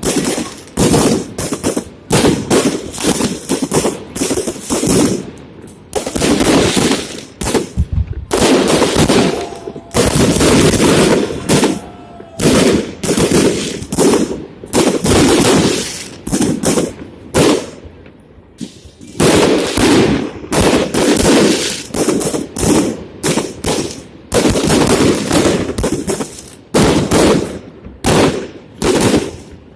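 Fireworks salute: shells bursting in rapid, irregular volleys of bangs and crackle, with short lulls about six and eighteen seconds in.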